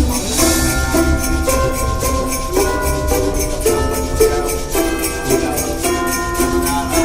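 Background music with a steady beat, bright jingling tambourine-like percussion and sustained melody notes.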